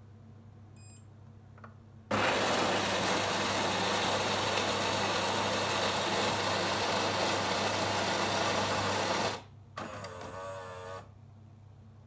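Siemens EQ3 s300 fully automatic coffee machine starting a latte macchiato: after a brief high tone about a second in, its built-in bean grinder runs with a loud, steady grinding noise for about seven seconds and stops. The brewing unit's motor then whirs briefly with a wavering pitch.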